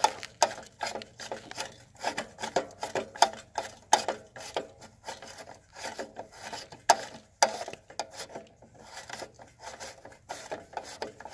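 Irregular scraping, rubbing and clicking of hands working over the metal starter shroud and rope starter of a reel mower's small engine, which is not running.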